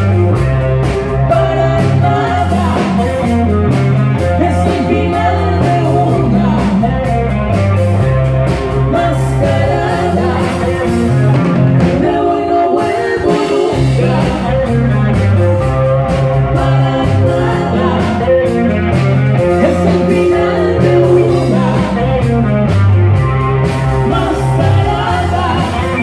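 A live band plays a song with a lead singer over bass and drums. The bass drops out briefly about twelve seconds in, then comes back.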